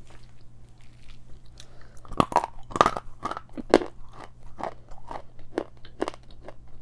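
Biting and chewing a piece of edible chalk close to the microphone: three loud, sharp crunches about two seconds in, then a steady run of smaller chewing crunches about twice a second.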